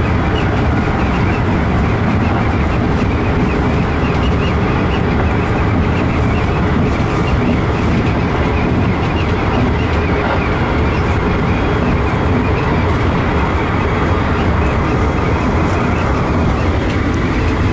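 Keikyu New 1000 series stainless-steel electric train running at speed, heard from inside its cab: a steady, loud rumble of wheels on rail and running gear.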